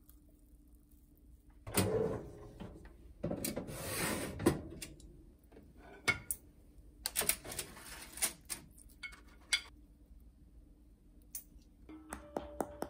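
Household handling noises: two brief rustling bursts, then a scatter of light clicks and knocks.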